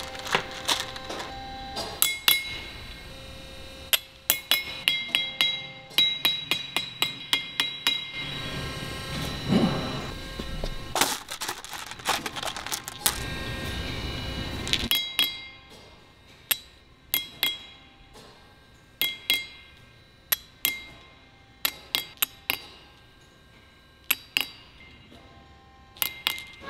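Brass hammer tapping metal balls into the holes of a steel rock drill head: sharp metallic taps, each with a short ringing tone, in quick runs and then singly every second or so. In the middle stretch, balls clink and rattle as they are handled.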